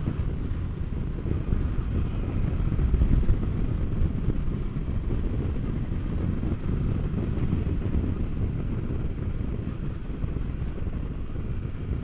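Royal Enfield Interceptor 650's parallel-twin engine running steadily as the motorcycle rides downhill, a continuous low rumble mixed with road and wind noise.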